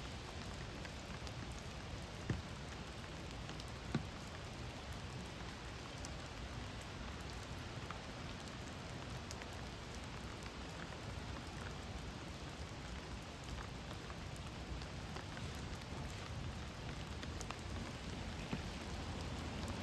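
Steady hiss of water, with two sharp clicks about two and four seconds in.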